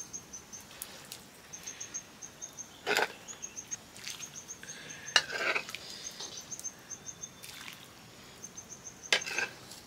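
Small birds chirping, with quick runs of short high-pitched notes repeating again and again. A few brief louder noises come about three and five seconds in and again near the end.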